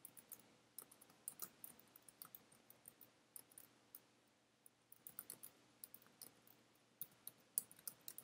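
Faint typing on a computer keyboard: an irregular run of soft key clicks, with a short pause about four seconds in.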